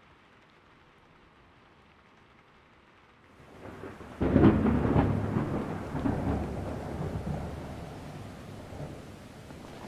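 Rain falling steadily and faintly, then a thunderclap: about three and a half seconds in, a rising rumble breaks into a sharp, loud crack, and the thunder rolls on in a long rumble that slowly fades over the rain.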